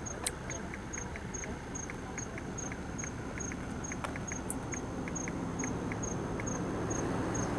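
A cricket chirping steadily and evenly, about two to three high chirps a second. Under it is a rushing noise that grows louder near the end, with a couple of faint clicks.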